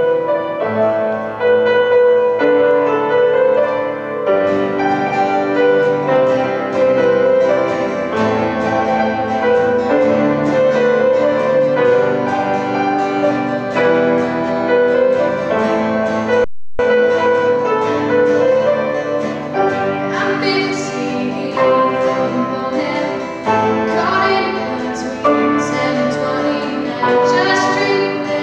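Grand piano playing a slow accompaniment, joined in the second half by a young female voice singing. The sound cuts out briefly just past the halfway point.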